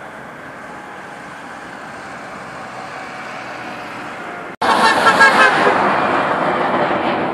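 Road vehicles passing with a steady hum that slowly grows. About two-thirds of the way in, after a sudden break, car horns honk loudly over the engine and tyre noise in short, repeated toots.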